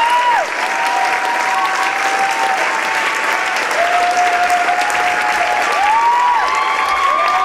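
Theatre audience applauding steadily, with repeated high calls from the crowd rising and falling above the clapping.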